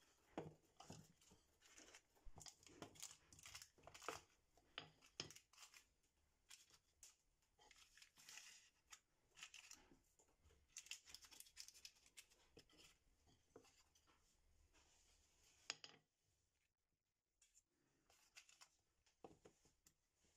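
Tart pastry being trimmed off the rim of a fluted tart tin and pressed into it by hand. The dough scraps and the baking paper underneath make faint, intermittent tearing and crinkling sounds with light taps, which stop about 16 seconds in.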